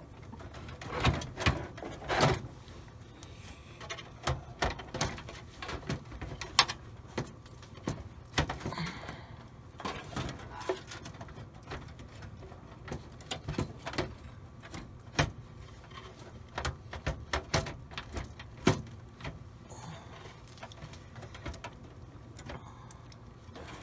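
Irregular clicks, knocks and scrapes of a computer power supply and its modular cables being handled and worked into a metal PC case, some knocks sharper than others.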